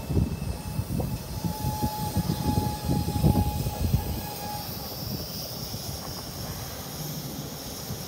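Hanshin 8000 series electric train braking to a stop at a station platform. An uneven low rumble and a steady whine fade out about four seconds in, and a quieter steady hum remains as it stands.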